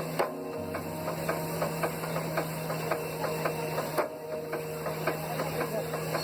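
Machinery running with a regular clatter of knocks, about three or four a second, over a steady hum.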